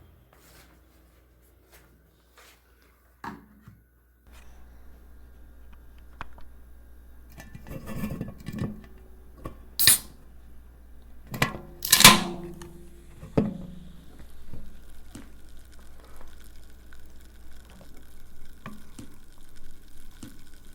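Monster energy drink aluminium can handled with small clicks. Just before halfway comes a sharp click, then the pull tab breaks the seal with a louder crack and a short hiss of escaping gas, followed by faint fizzing of the carbonated drink.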